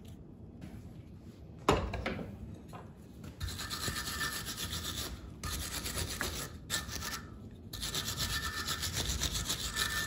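Steel wire brush scrubbing a red-hot tong blank clamped in a vise, in quick back-and-forth strokes in three bouts. A single sharp clank comes a little under two seconds in.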